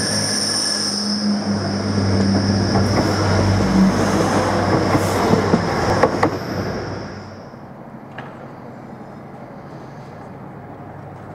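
A train running past on the rails: a dense rumble of wheels with a steady high whine, a low hum and scattered clicks, dying away about seven seconds in to a quieter steady background.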